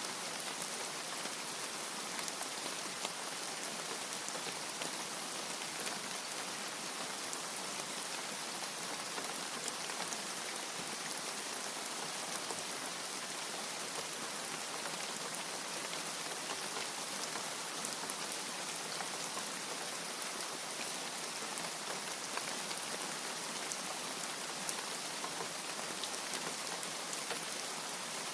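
Steady rain with the patter of many small drop impacts, a constant hiss with no thunder.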